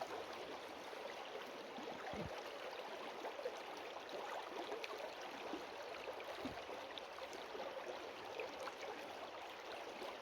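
A small mountain stream babbling and gurgling steadily, with two soft low bumps about two and six seconds in.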